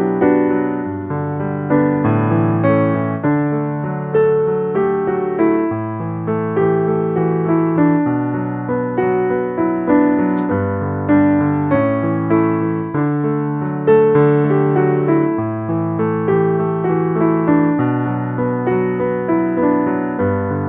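Background piano music: a slow, gentle run of notes over low bass notes, each note struck and fading.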